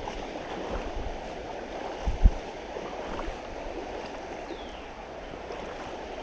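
Creek water running steadily, with one dull thump about two seconds in.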